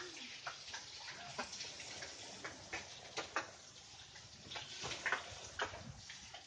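Irregular wet clicks and small splashes of a cow feeding at a water-filled trough.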